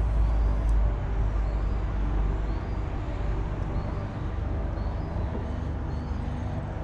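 Road traffic crossing the concrete bridge overhead: a steady low rumble of vehicles, loudest near the start.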